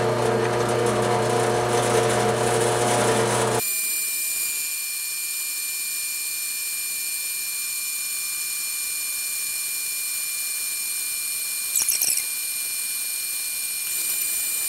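Drill press running a homemade milling spindle with a 3/16-inch end mill cutting a slot in nylon. A steady low motor hum changes abruptly, about four seconds in, to a steady high whine of the cut, with a brief squeal about twelve seconds in.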